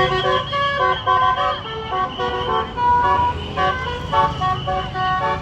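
A bus's Basuri telolet horn, with roof-mounted trumpets, playing a quick tune of short notes that step up and down, several a second, over a low engine rumble.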